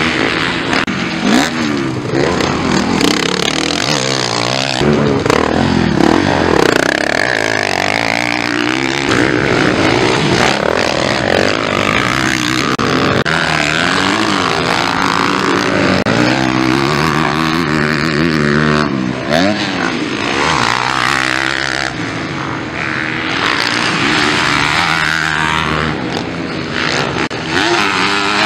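Motocross bikes racing on a dirt track, their engines revving up and down again and again as the riders accelerate, shift and back off through the turns and jumps, several bikes heard at once as they pass.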